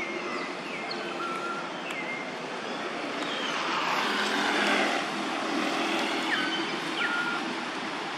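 A distant engine, like a passing vehicle or aircraft, rushing louder toward the middle and dropping off about five seconds in. A few short falling chirps sound over it.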